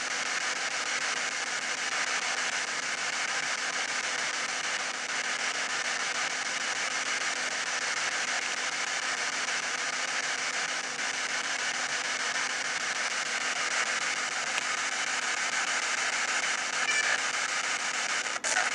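Steady hiss of radio static from a P-SB7 spirit box sweeping through radio stations, with a short dropout and clicks near the end.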